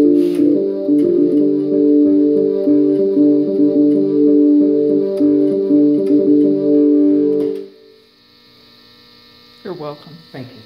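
Electronic keyboard played with both hands, a repeating pattern of sustained, guitar-like notes that stops sharply about three-quarters of the way through, leaving a faint hum. A brief voice sound comes near the end.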